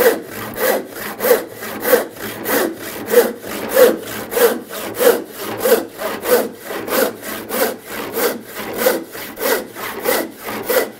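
A 7-point handsaw ripping along the grain of a board in a vise, with steady, even strokes, about three every two seconds.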